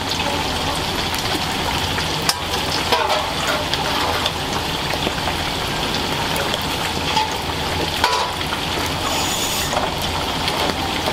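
Tempura frying in a deep fryer: hot oil sizzling and crackling steadily as batter is ladled into perforated metal ring molds, with a few light metal clicks.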